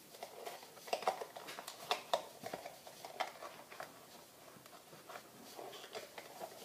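Scattered soft clicks and rubbing as a heat-loosened rubber RC tire is worked off its plastic wheel by hand, with a few sharper clicks about one, two and three seconds in.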